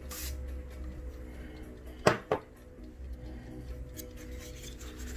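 Two sharp knocks a quarter of a second apart, about two seconds in, from objects being handled and set down on a hard surface. Faint background music plays underneath.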